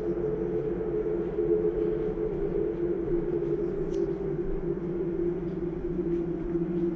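A steady mechanical drone of several held tones, with a few faint clicks.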